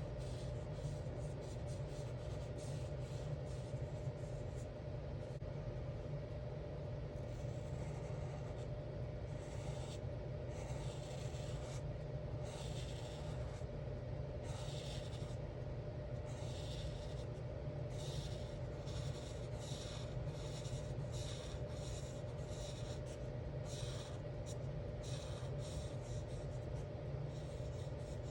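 Alcohol marker nibs stroking on colouring-book paper: a run of short scratchy strokes, sparse at first and then coming quickly one after another. A steady low hum runs underneath.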